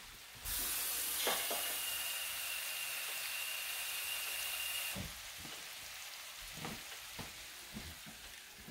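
Water running for about four and a half seconds, an even hiss with a steady high whistle, while water is added to a pot of beans to cover them. It stops abruptly, leaving a skillet of onions and spices sizzling quietly, with a few light clinks of utensils on the pans.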